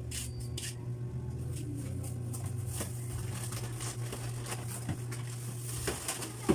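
Meat broth simmering in a large wok, its bubbles popping in small irregular crackles over a steady low hum. A single sharp knock near the end.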